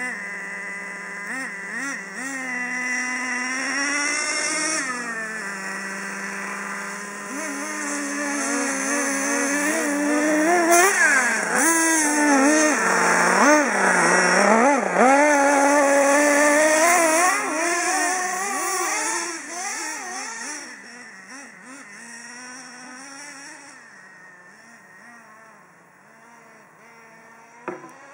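Small nitro-fuelled engine of a radio-controlled truck revving up and down as the truck drives, its high-pitched buzz rising and falling in pitch. It is loudest about halfway through as the truck passes close, then fades as it drives away.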